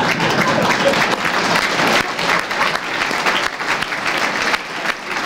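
Audience applauding in a hall, with dense clapping that drops off somewhat after about two seconds and carries on more thinly.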